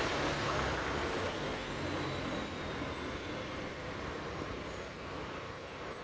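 Road traffic noise: a vehicle sound fades over the first few seconds, leaving a steady hum of distant traffic.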